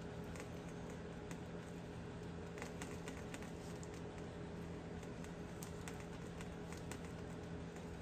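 Faint light clicks and crinkles from hands twisting thin stranded wires together and brushing the plastic wrap on a headlight housing, scattered irregularly over a steady low hum.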